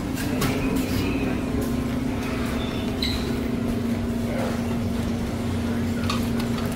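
Breakfast-room background sound: a steady low hum with a few scattered clinks of dishes and cutlery.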